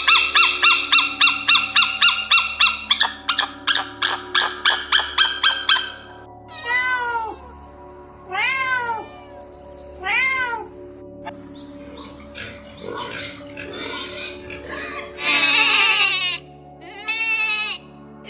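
A series of animal calls over background music. First comes a fast run of high, evenly repeated pitched calls, about four a second, which stops about six seconds in. Then come three separate cries that each slide sharply downward, followed by a mix of further calls near the end.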